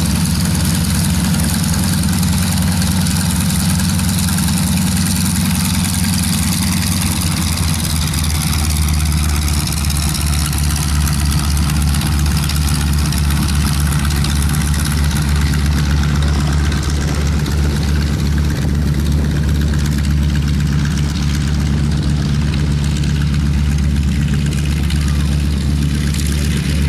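North American AT-6D trainers' nine-cylinder Pratt & Whitney R-1340 radial engines idling steadily as the aircraft taxi.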